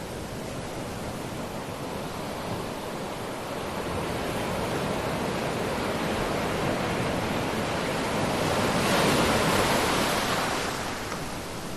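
Ocean waves on a shore: a wash of surf that swells over several seconds, peaks as a wave breaks about nine seconds in, and then recedes.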